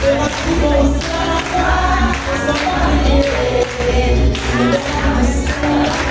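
Live Afro-Brazilian group music: several voices singing together over drums, with a deep, steady low beat.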